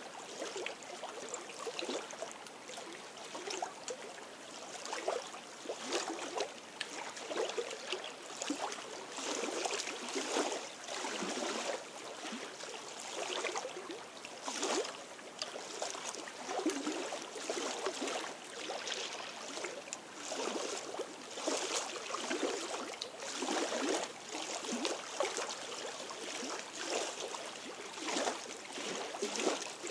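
Small lake waves lapping and splashing irregularly against the rocky shore, in a constant uneven patter of little splashes.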